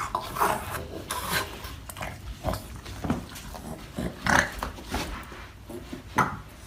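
A dog squirming and rubbing its body against carpeted stairs: irregular scuffing and rubbing sounds.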